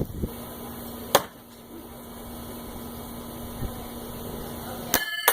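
A thrown knife hits the wooden target with one sharp impact about a second in. Near the end comes a short run of metallic clinks that ring on briefly.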